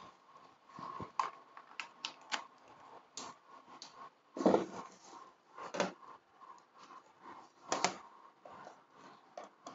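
Light handling noise: scattered clicks and knocks of a white plastic projector lamp and its power cable being moved on a tabletop. The louder knocks come about four and a half, six and eight seconds in.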